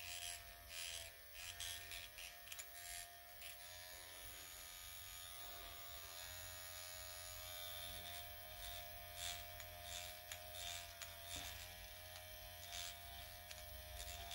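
Dr. Pen electric microneedling pen running with a faint, steady buzz as its needle cartridge is glided over the skin of the face.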